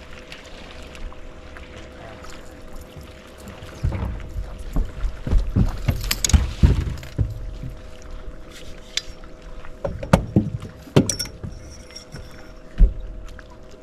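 Irregular knocks and thumps on a bass boat's deck and hull as anglers move about on it, thickest in the middle, with a few sharp clicks over a faint steady two-note hum.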